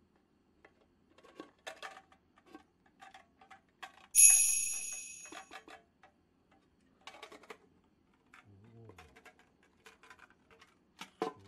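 Aluminium mess tins clicking, tapping and scraping against each other as they are handled and fitted together. About four seconds in comes one loud, bright metallic ring that dies away over a second or so.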